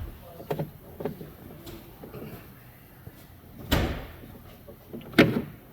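A few knocks and clunks as tools and plastic parts are handled. The loudest knock comes about five seconds in.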